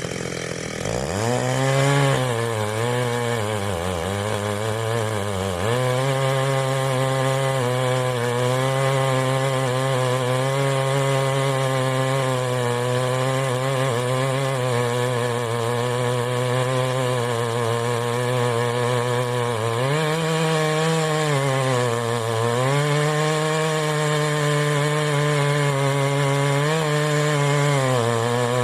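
Ported Stihl MS880 two-stroke chainsaw with a dual-port muffler, revved up from a lower idle-like note about a second in. Its pitch wavers for a few seconds, then it is held at steady high revs, dipping briefly twice about two-thirds of the way through and once more near the end.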